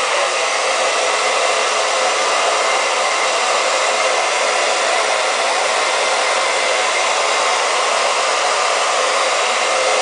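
Handheld blow dryer running steadily, blowing air onto wet hair to dry and set a gelatin protein treatment: an even, loud rushing noise.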